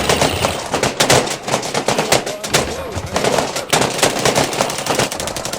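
Airsoft guns firing: rapid, irregular strings of sharp shots.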